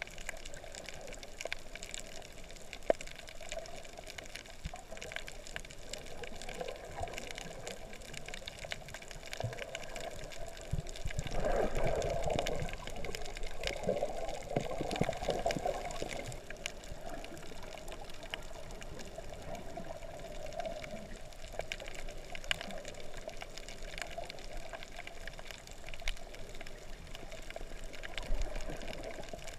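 Underwater sound picked up through a submerged camera: a steady muffled rush of water with scattered faint clicks. It swells louder for a few seconds about twelve seconds in.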